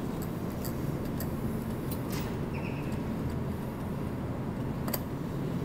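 Claw machine and arcade hum running steadily, with a few faint clicks and a brief electronic blip about two and a half seconds in.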